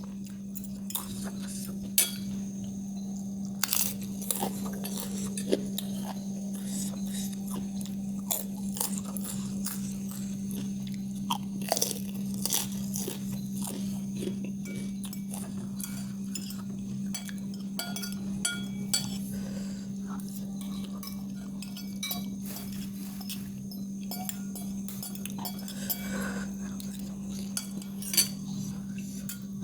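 Close-miked eating: chewing and crunchy bites, with scattered clinks of cutlery on a plate, over a steady low hum.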